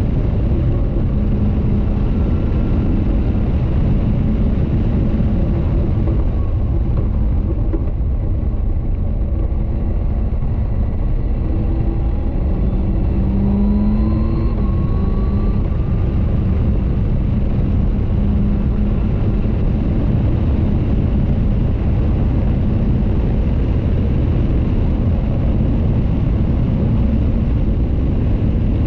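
Caterham 620R's supercharged 2.0-litre Ford Duratec four-cylinder engine running at track speed, heard under heavy wind noise in the open cockpit. The engine note climbs briefly about halfway through.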